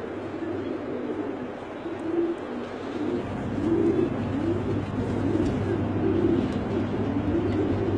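Several pigeons cooing in repeated, overlapping rising-and-falling coos, over a steady low hum that grows louder about three seconds in.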